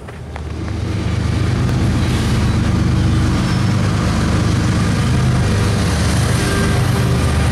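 BNSF diesel freight locomotive passing close by, its engine running with a steady low rumble that swells over the first second.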